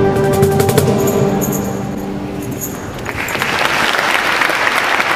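A band's last chord rings out and fades, with a few tambourine jingles, and about three seconds in an audience starts applauding steadily.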